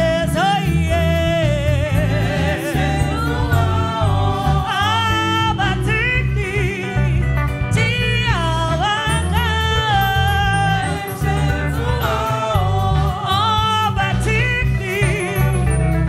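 Church choir singing a gospel song through microphones, over amplified instrumental backing with a strong bass line.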